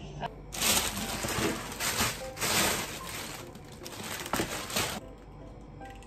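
Black plastic bag wrapping crinkling and rustling as a taped parcel is handled and opened. It starts about half a second in and stops near the end.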